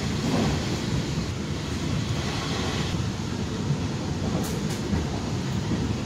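Passenger train running along the track: steady running noise of the carriage, heard from inside the coach.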